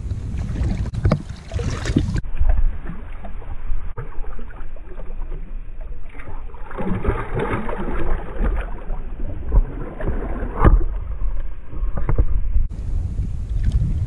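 Water sloshing and splashing close to an action camera as someone wades through shallow water, over a low rumble of wind on the microphone. The sound turns muffled about two seconds in and stays dull until near the end.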